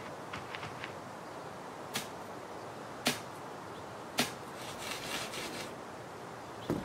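Digging stick striking hard, dry, cracked soil to open a planting hole. Three sharp blows come about a second apart, then a scratchy stretch of loosened earth being scraped, and a fourth blow near the end.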